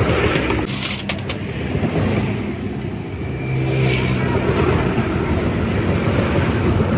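A motor vehicle's engine running steadily, with a few sharp clicks about a second in.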